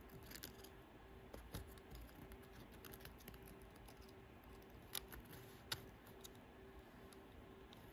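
Near silence with a few faint small clicks, the clearest about five seconds in and again just before six, from a flat ribbon cable being seated in its connector on a laptop daughterboard. A faint low hum sits underneath.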